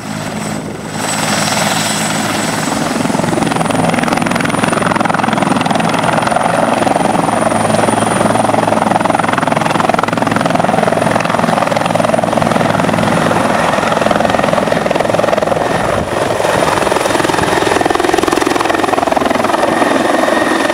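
Bell 412 air-ambulance helicopter lifting off into a low hover and climbing away: steady rotor and turbine noise with a thin high turbine whine, getting louder about a second in and then holding steady.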